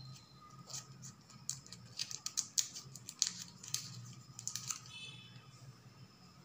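Crinkling and crackling of a candy wrapper being peeled off a Reese's peanut butter cup by hand, a quick run of crackles in the middle that thins out near the end.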